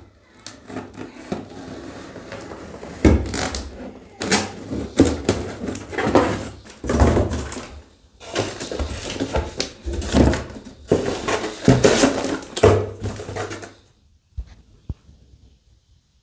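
A cardboard parcel being cut open with a pocketknife and unpacked: its flaps and the plastic-wrapped contents are rustled, scraped and knocked, an irregular run of crinkling and thuds.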